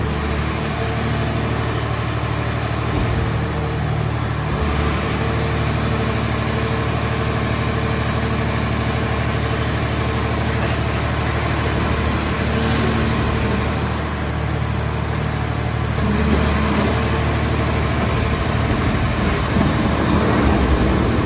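The engine and hydraulic system of a mobile car baler running steadily. A thin high whine dips in pitch twice.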